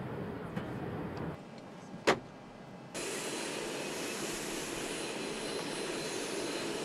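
Steady airliner cabin hum, then a single sharp knock about two seconds in. From about three seconds a steady rushing jet aircraft noise on the ramp.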